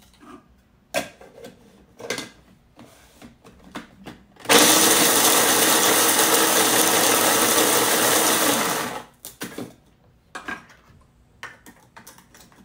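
Small electric food processor running for about four seconds, grinding dry eggshells down to a powder; it starts abruptly and winds down at the end. Before and after it, the light clatter of eggshells being dropped into the bowl.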